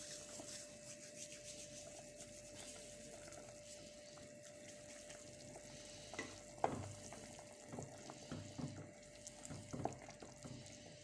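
Thyme rubbed and crumbled between the palms, a faint dry crackle, with a few soft knocks in the second half. A steady faint hum runs underneath.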